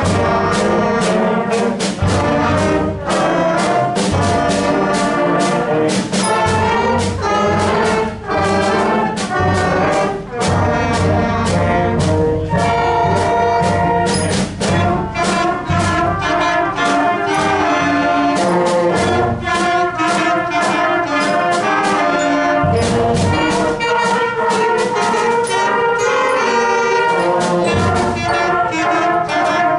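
School band playing a jazz piece, brass to the fore, with sharp accented notes on a steady beat.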